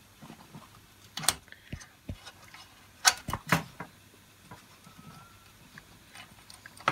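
Scattered sharp clicks and knocks, about half a dozen, the loudest pair about 3 seconds in, with quiet between them.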